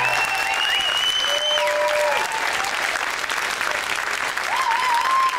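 Studio audience applauding, with a long high whistle in the first second and a half and a few shouts of cheering over the clapping.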